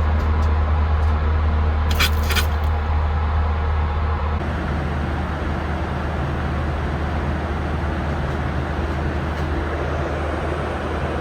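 Steady cabin noise of a Boeing 737-800 in flight: a low drone from the engines and airflow, with a brief clicking rustle about two seconds in.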